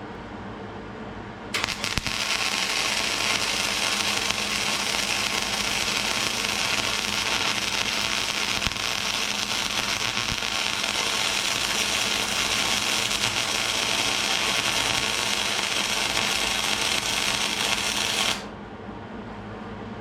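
Hobart Handler 140 welder running gasless flux-core wire on 1/8 inch steel, set to voltage 3 with wire feed around 40 to 45. The arc crackles and sputters steadily for about seventeen seconds, starting suddenly about a second and a half in and cutting off sharply near the end as the bead is laid and the trigger is released.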